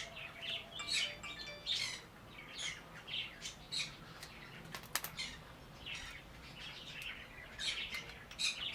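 Small birds chirping and tweeting, many short calls one after another. There are a couple of sharp clicks about five seconds in.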